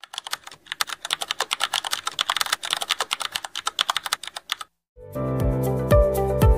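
Computer keyboard typing: a fast run of sharp key clicks that stops about four and a half seconds in. Just before the end, music with a deep, regular beat comes in.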